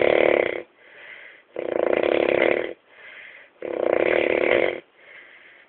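Snoring in a steady rhythm: three long snores, each about a second long and about two seconds apart, with a softer breath between them.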